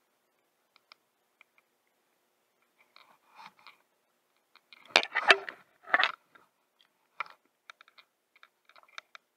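Sparse clicks and crunchy handling noise from hands working a baitcasting reel and rod, with two louder rustling bursts about five and six seconds in.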